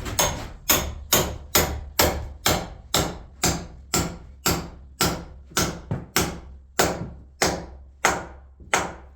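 Hammer blows on the wooden bunk bed ladder, a steady run of about two strikes a second, each with a short ring, over a low hum.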